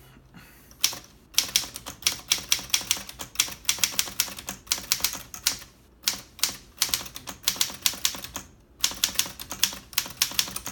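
1938 Underwood portable typewriter being typed on: quick runs of key and typebar strikes, broken by a few short pauses.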